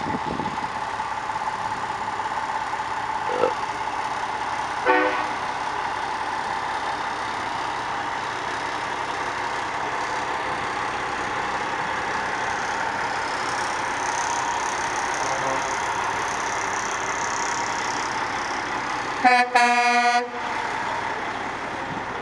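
Semi-truck prime mover running as it drives slowly past, with a short horn toot about five seconds in and a loud horn blast of about a second near the end.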